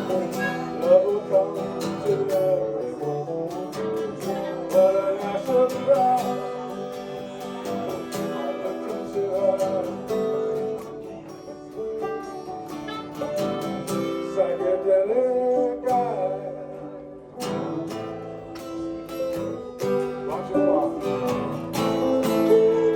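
A song on acoustic guitar: strummed and picked chords, with a voice singing over them.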